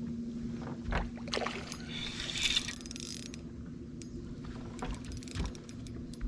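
Light knocks and handling noise in a small fishing boat, with a short rushing noise about two and a half seconds in, over a steady low hum.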